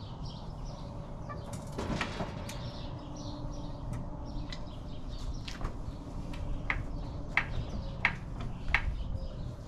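Scattered sharp clicks and knocks as hands work at the raised rear wheel of a dune buggy, with small birds chirping.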